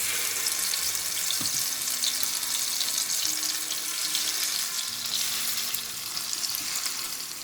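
Marinated chicken tikka pieces sizzling as they fry on high heat in hot oil in a pan: a steady, dense crackling hiss.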